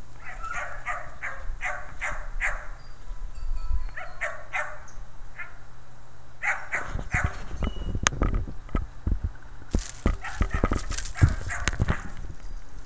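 Dog barking: a quick run of short, high barks, a few more after a short pause, then more barks mixed with rough crackling and knocking noise in the second half.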